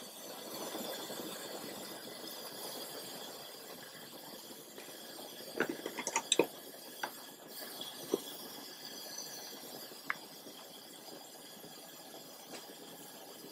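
Pressure kerosene mantle burner's flame rushing softly as the new mantle flares up, then settling to a faint steady hiss. A few light clinks come in a quick cluster about six seconds in, with single ones later.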